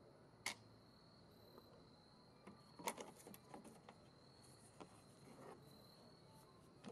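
Near silence broken by a few faint, short clicks and taps, about five or six in all, the clearest about half a second and three seconds in: the engine cover and its screws being handled and removed.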